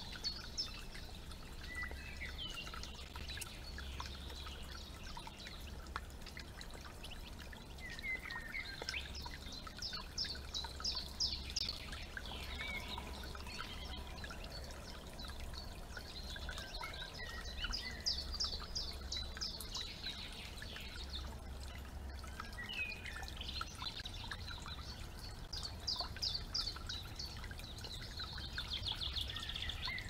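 Several woodland birds singing, with runs of rapid high notes coming several times, over a soft trickle of water.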